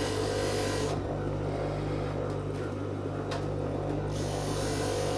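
Electric lapidary sanding wheel and dust extractor running with a steady hum, under the hiss of 240-grit paper sanding the back of an opal. The hiss drops away about a second in and returns near the end.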